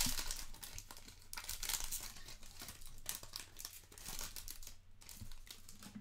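Foil trading card pack wrapper crinkling as the cards are slid out of the opened pack, an irregular rustle that is louder in the first second or so and then quieter.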